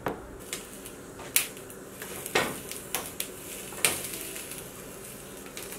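Poblano and jalapeño chiles charring on a flat griddle over a stove burner: a faint steady hiss with about seven scattered sharp pops and small knocks.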